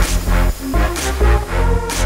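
Electronic music with a heavy, steady bass beat.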